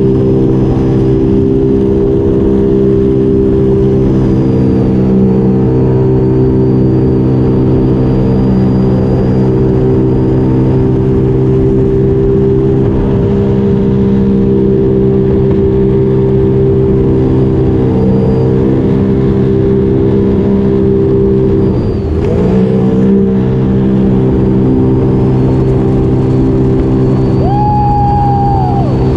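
2021 Spark Evo personal watercraft running at a steady high throttle, its engine note holding level over rushing water spray. About 22 seconds in the engine dips briefly and then picks back up.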